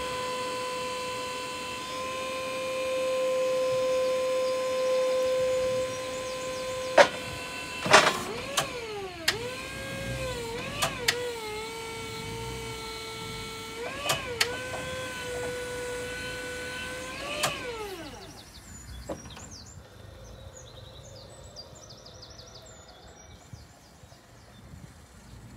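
Mitsubishi electric forklift's hydraulic pump motor whining steadily as the mast lifts, then sliding up and down in pitch with several sharp clicks as the controls are worked. After about eighteen seconds the whine stops, leaving faint high chirps.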